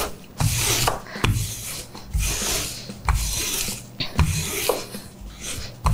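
Wooden rolling pin rolled back and forth over cookie dough between sheets of plastic bag. The plastic rubs and crinkles with each stroke, about one stroke a second.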